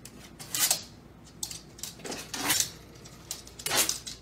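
A small dog pawing at a door to push it shut: about four short scrapes and clicks of its paws on the door and claws on the hardwood floor.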